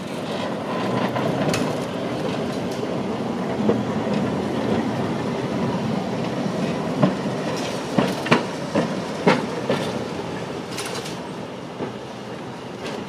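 Heritage electric tram rolling past close by: a steady rumble of wheels on rails, with a run of sharp clacks from the wheels over the track about seven to nine and a half seconds in, fading as it moves away.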